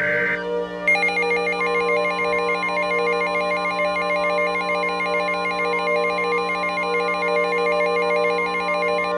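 The last of the Emergency Alert System SAME header data bursts, a harsh digital buzz, then the two-tone EAS attention signal sounding steadily for about eight seconds over a quiet ambient music bed. It signals an incoming emergency alert, here a tornado warning.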